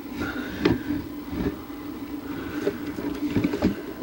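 Knocks and rustling from a worker moving about in a stick-built bald eagle nest close to the nest camera's microphone, several sharp knocks over a steady low hum.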